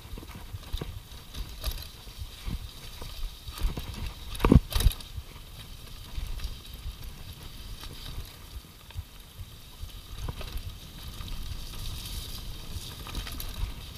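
Mountain bike rattling and knocking over a rough dirt trail on a fast downhill run, tyres rumbling, with two heavy thumps about four and a half seconds in.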